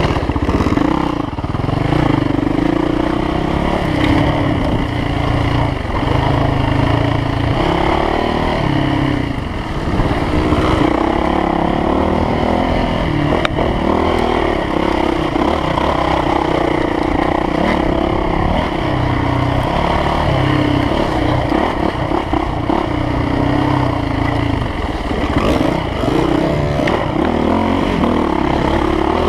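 Dirt bike engine running hard on a trail, revving up and down over and over as the throttle is worked.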